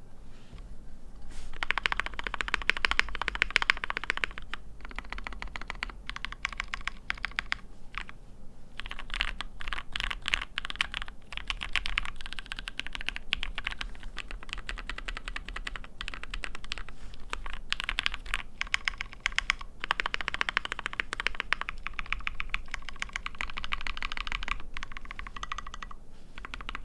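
Custom 60% mechanical keyboard with Gateron Milky Yellow switches in an aluminium Tofu60 case, modded with PE foam and tape, being typed on fast in bursts with short pauses; the typing sounds thockier and creamier after the mods.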